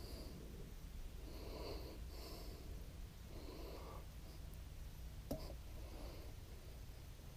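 Quiet breathing in and out through the nose close to the microphone, soft puffs about once a second, with a single sharp click about five seconds in.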